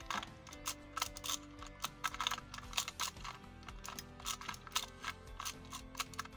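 Rapid, irregular clicking of a magnetic ShengShou MrM Square-0 puzzle as its layers are turned quickly in a speed solve, over background music.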